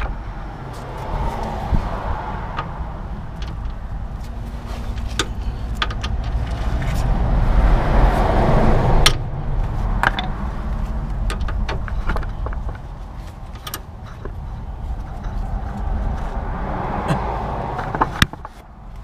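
Socket and long bar worked on the lower suspension arm nuts of a VW Golf Mk4: scattered metallic clicks and knocks of the tool on the fastener. Under them, a steady low rumble and hiss swells toward the middle and cuts off suddenly.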